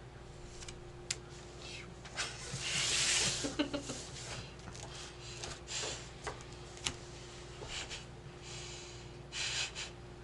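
Playing cards being tapped and slid on a tabletop during play: scattered light taps, with a longer swish about two seconds in and another near the end.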